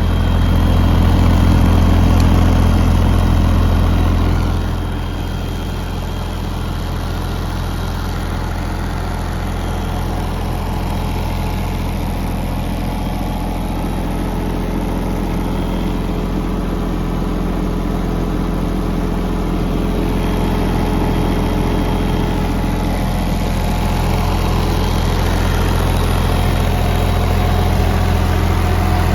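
JCB 8030 ZTS mini excavator's diesel engine running steadily, a little louder for the first four seconds or so, then settling to an even note.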